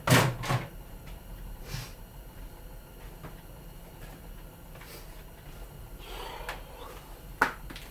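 A sharp knock and clatter right at the start, then scattered light clicks and taps of small plastic and metal parts being handled, with one sharp click near the end.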